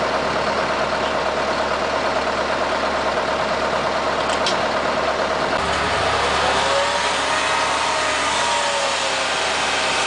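Dump truck engine running at idle, then revving up about six seconds in as the hydraulic hoist starts raising the loaded bed to tip asphalt. The engine note climbs and then eases off slowly.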